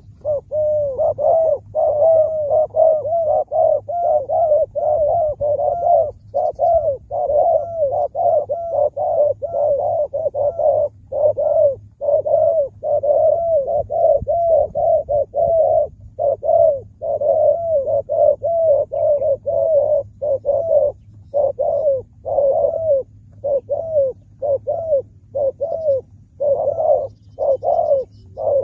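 Spotted doves cooing in a long, fast run of short repeated coos broken by brief pauses.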